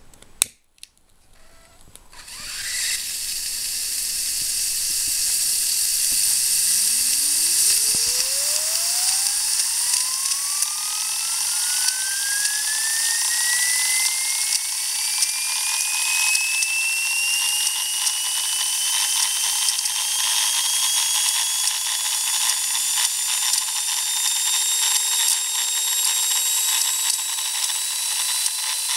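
Karsten Gintschel "Tornado" model steam turbine starting up: after a sharp click, steam hiss with a fast crackling rattle sets in about two seconds in, and from about six seconds the turbine's whine climbs steadily from a low hum to a high-pitched whine as the rotor spins up.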